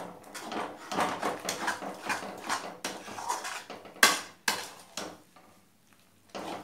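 Metal spatula scraping and knocking against a metal kadhai as a thick gram-flour batter is stirred, in quick repeated strokes. Two sharper knocks come about four seconds in, then the stirring pauses for about a second near the end before starting again.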